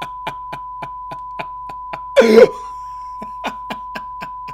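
Cartoon song soundtrack: a steady high-pitched beep-like tone held throughout over an even ticking beat of about three or four clicks a second, with a short, loud yell about two seconds in.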